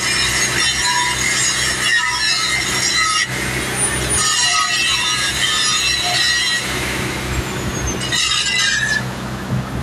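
Welding arcs crackling and hissing as two welders run vertical-up (ascending) passes on a steel pipeline girth weld, over a steady low engine hum. The crackle breaks off briefly around three seconds in and stops about a second before the end.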